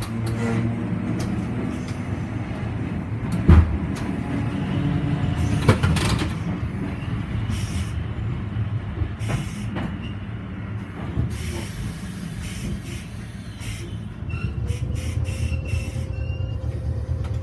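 Streetcar running along its track, heard from inside the car: a steady low hum of the running gear with knocks from the wheels, the loudest about three and a half seconds in and again around six seconds. A few short high squeaks come near the end.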